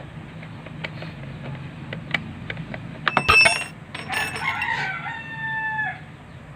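A rooster crows once, starting about three seconds in: a long call with a held note that drops at the end. Light clicks and taps sound around it.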